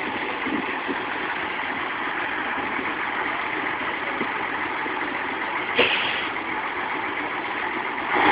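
Truck engine idling steadily, with a short, louder burst about six seconds in.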